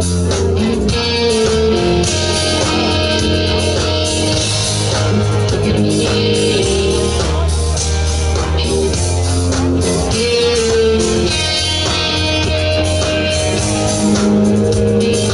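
Live rock band playing, with electric guitars over bass guitar and drums.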